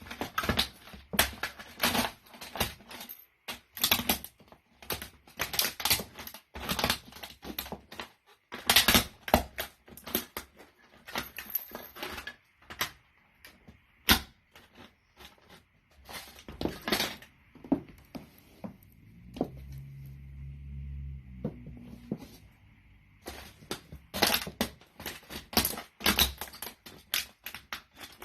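A toy car cracking and crunching under boots in repeated stomps, with quick clusters of sharp snaps. About two-thirds of the way through, a low steady hum with a few held tones runs for a few seconds.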